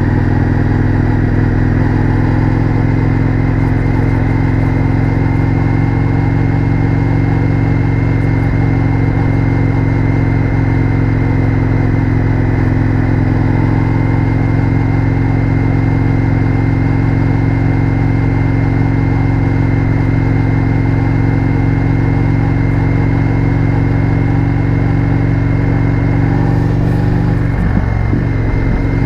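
Indian FTR 1200's V-twin engine through an Akrapovic exhaust, heard onboard while cruising at a steady engine speed. Near the end the note dips briefly with a gear change and then rises as the bike accelerates.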